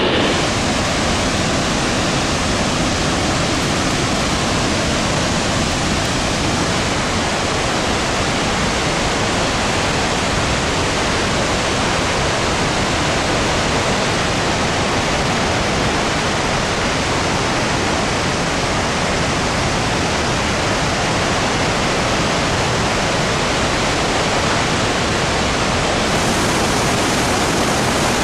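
Victoria Falls, a very wide waterfall, with a steady, loud, even rush of falling water.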